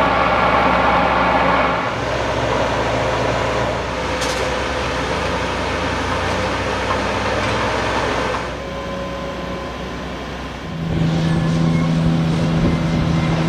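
Diesel engine of a crawler log crane running steadily as it works a log grapple. The engine sound changes abruptly a few times.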